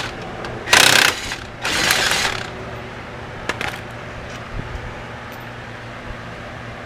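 Ratchet wrench being worked in two short bursts of clicking, about a second and two seconds in, then a few light metal clicks, while brake hardware is taken off the front wheel.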